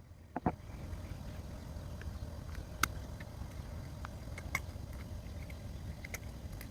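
A few scattered sharp clicks and taps from a phone charger being handled and worked apart, over a steady low rumble.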